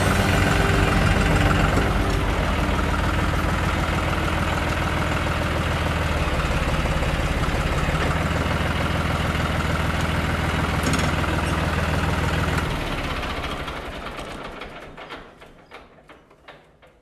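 John Deere 5203 tractor's diesel engine running steadily, then shut off about 13 seconds in, knocking as it slows and dies away.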